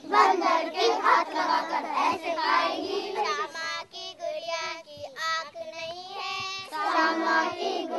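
A group of children singing an action song together in chorus. The singing thins out for a couple of seconds in the middle, then the full group comes back in near the end.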